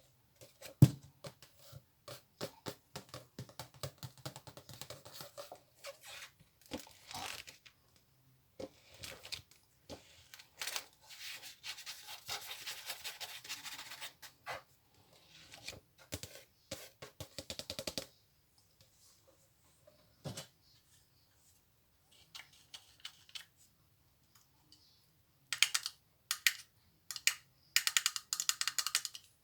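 Close-miked ASMR trigger sounds: rapid tapping and clicking on an object, with a stretch of continuous crinkly rustling in the middle and quick bursts of crisp clicks near the end.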